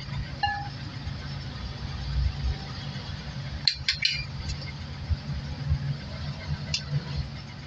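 A glass mixing bowl clinking three or four times in quick succession against the rim of a stainless steel strainer about four seconds in, with one more light tap near the end. A low steady rumble runs underneath.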